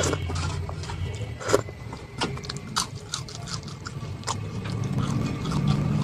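Close-miked eating: repeated crisp clicks and crunches of chewing and wet mouth sounds, over a low rumble that grows louder near the end.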